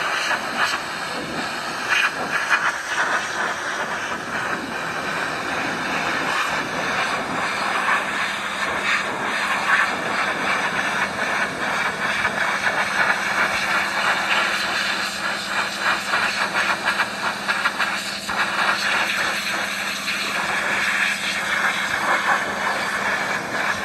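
Pressure washer jet spraying water onto a greasy engine block: a steady, loud hiss of the water spray spattering off the metal. A faint low hum joins it about seven seconds in.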